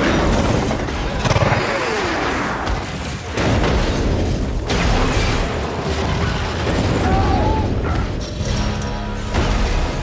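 Film sound mix of a high-speed train crash: heavy booms and crashing, grinding metal with dramatic music underneath.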